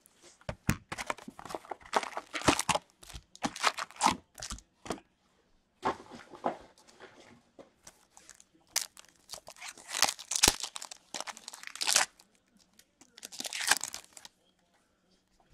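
Hockey card pack wrappers and a cardboard box handled by hand: irregular bursts of crinkling and tearing with short pauses between, as the packs are pulled out and one is torn open near the end.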